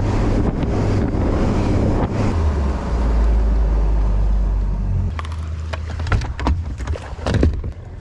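Bass boat under way: outboard motor running with a steady low rumble, water rushing and wind buffeting the microphone. It eases off about five seconds in, followed by a few sharp knocks and clicks.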